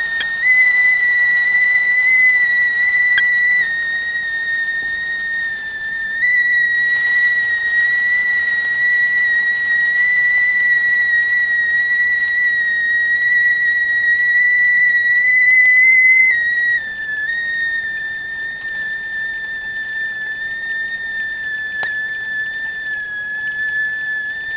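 Whistling kettle at the boil, steam sounding one steady, high whistle that wavers slightly in pitch and loudness. About two-thirds of the way through it drops a little in pitch and gets quieter.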